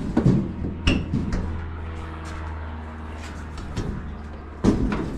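Sharp metal knocks and clatter as dryer panels and tools are handled, two louder knocks about a second in and near the end, over a steady low hum.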